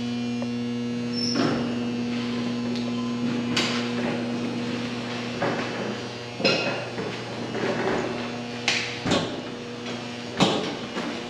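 A steady electrical hum with about six separate knocks and bangs scattered over it, the loudest near the end.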